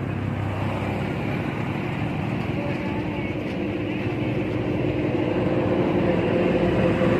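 A motor engine running steadily, getting louder toward the end.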